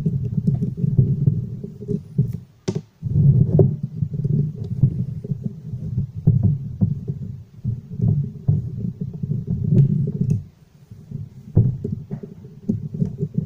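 Small clicks and knocks of a Volvo electronic throttle module being handled and taken apart by hand, over a low, uneven rumble. The rumble drops out briefly about three seconds in and again around ten to eleven seconds.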